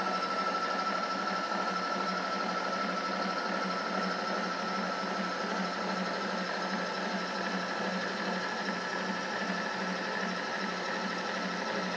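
Milling machine table power feed motor running steadily with a constant whine, driving the table along.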